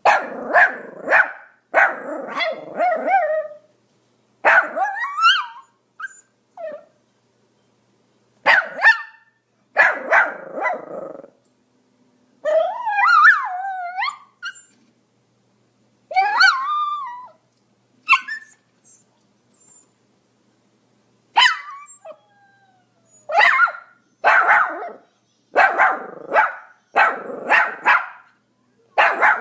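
Pomeranian barking in quick bursts of several sharp barks, with pauses of a second or two between bursts. Around the middle come a couple of longer calls that waver up and down in pitch.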